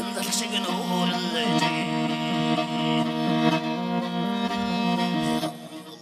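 Morin khuur (Mongolian horsehead fiddle) bowed, playing a melody over a steady low drone. The drone drops away and the music thins out about five and a half seconds in.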